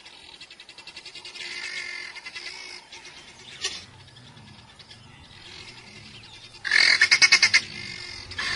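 Helmeted guineafowl calling: rapid rattling cackles of harsh, evenly repeated notes. A softer run comes in the first few seconds and a much louder one about seven seconds in.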